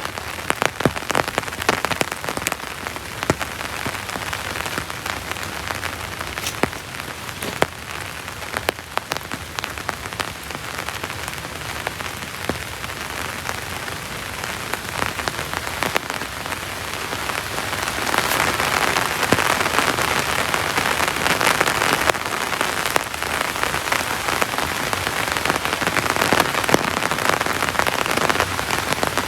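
Heavy rain falling steadily, with many sharp individual drop hits close by. The rain gets louder about two-thirds of the way through.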